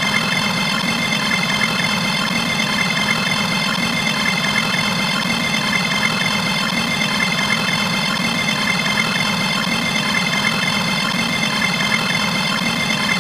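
A dense, steady wall of many sound effects layered at once, blending into a loud drone that resembles an idling engine, with many high steady tones over it.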